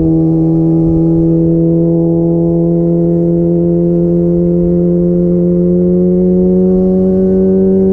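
Kawasaki ZX-25R's 250 cc inline-four running hard through a DX Generation Pro Race exhaust, holding a steady high note that climbs slowly as the bike gathers speed in one gear. Wind rumble on the camera underneath.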